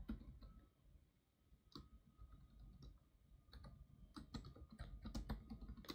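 Faint, irregular keystrokes on a System76 Lemur laptop keyboard as a password is typed, with more taps in quick succession in the second half.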